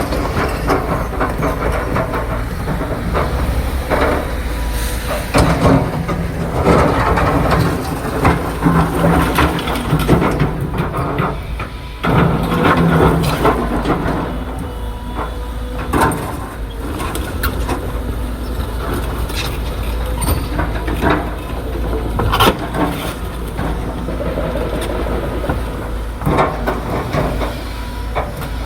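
Large excavator's diesel engine running steadily, with frequent metallic knocks and clanks from the machine.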